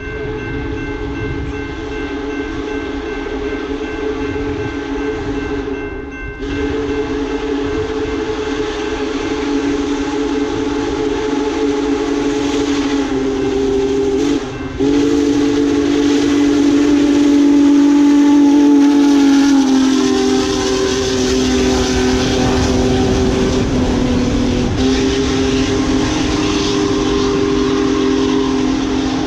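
Union Pacific Big Boy 4014 steam locomotive's whistle blowing long, loud chords, broken by brief gaps about 6, 14 and 20 seconds in, the chord shifting after the last gap. The whistle grows louder as the locomotive nears, over a low rumble.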